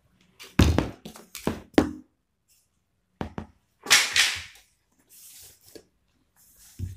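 Hard knocks of a hand rivet tool and a hardwood plank being handled and set down on a wooden workbench: four close together in the first two seconds, another about three seconds in, then a short scrape of wood sliding on the bench.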